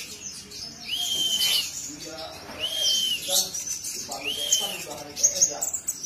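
Caged male sunbird (kolibri ninja) singing: a high arched whistle repeated three times, about every second and a half, with quick high chips and twittering between the whistles.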